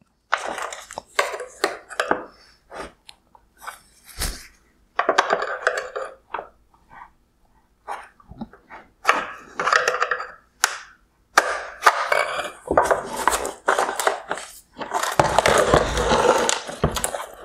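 A metal pick tool clicking and scraping against the hard plastic housing of a 2020 Mercedes-Benz CLA LED headlight while the wire harness connector's locking tabs are pushed in, with the housing knocking and rattling as it is handled. The sound comes as irregular short clicks and scrapes, with a longer stretch of scraping near the end.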